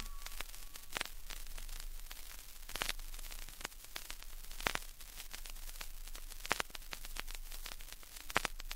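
Vinyl record surface noise in the blank groove between tracks: steady hiss with scattered clicks and pops and a faint low mains hum.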